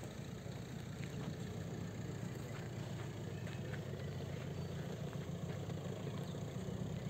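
A vehicle engine idling steadily, a low even hum with no change in speed.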